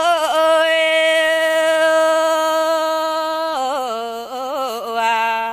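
A woman singing unaccompanied in the Red Dao language, in the traditional lượn style. She holds one long steady note, then about three and a half seconds in drops to a lower note with several wavering turns, and breaks off near the end.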